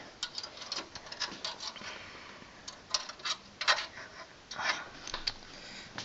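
Irregular small metallic clicks and scrapes of a screwdriver turning a screw into the steel expansion-slot bracket of a PC case, with a few louder scrapes around the middle.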